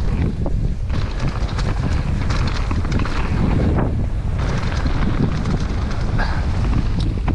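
Wind buffeting a helmet-mounted GoPro's microphone during a fast mountain-bike descent, a constant low rumble, with the tyres running over a leaf-covered dirt trail and the bike rattling and knocking over bumps.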